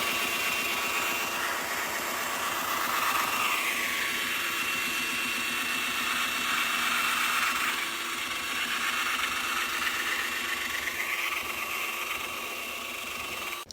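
Handheld electric woodworking power tool running steadily under load on a bench top's edge, its motor sound shifting slightly as it works, then cutting off abruptly at the end.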